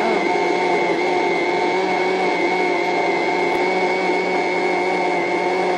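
Countertop blender running steadily, a constant motor whine, blending lemon juice with mint and ice into a liquid.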